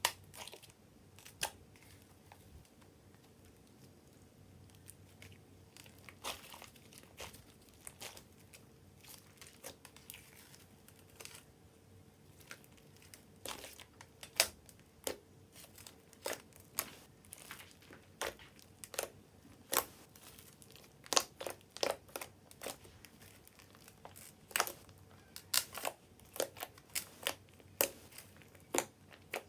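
Slime being squeezed and stretched by hand, giving short sticky clicks, crackles and pops. They are sparse at first and come faster and louder from about halfway through.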